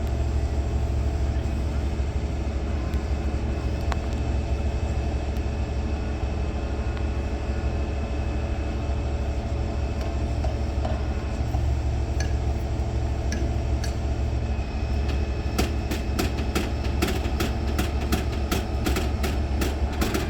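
Heavy truck diesel engine running steadily during a wrecker lift. From about three-quarters of the way in, a quick run of sharp clicks and creaks is heard over it.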